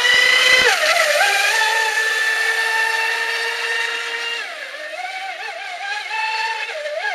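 Radio-controlled racing boat's motor whining high at speed. The pitch dips briefly about a second in, holds steady, then falls and wavers up and down from about four and a half seconds as the throttle is worked.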